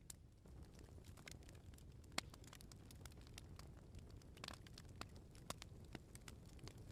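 Wood bonfire crackling, with scattered sharp pops at irregular intervals, a louder one about two seconds in, over a low steady rumble.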